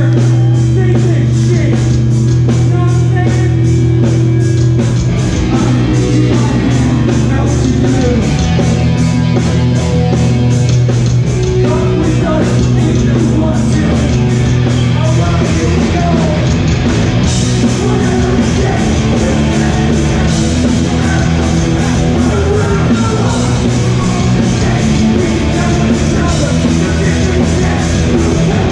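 Live hardcore punk band playing loudly: distorted electric guitars and bass holding chords over fast, steady drumming.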